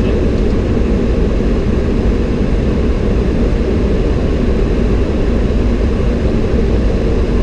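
Steady rushing noise of airflow and engines heard inside a Boeing 737-800 flight deck on final approach, with the landing gear down.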